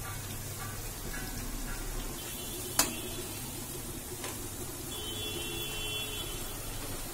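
Potato pakoras in gram-flour batter deep-frying in hot oil in an aluminium kadai, a steady sizzle. A slotted metal spoon clinks sharply against the pan nearly three seconds in and lightly again about a second and a half later.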